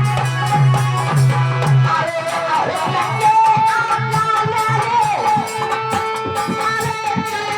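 Indian devotional folk music (a jas song): an instrumental passage with a steady drum beat, heavy at first, under a sustained melodic lead line that slides between notes.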